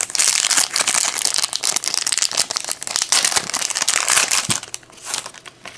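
Foil trading-card pack wrapper being torn open and crinkled by hand, a busy crackling that dies away about five seconds in.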